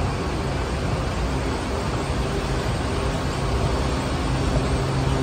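Metro station escalator running, a steady mechanical hum over a low rumble.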